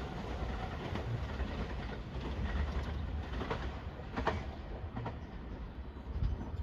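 Passenger train running past, a steady rumble and rush of wheels on rail, with a sharp clack about four seconds in.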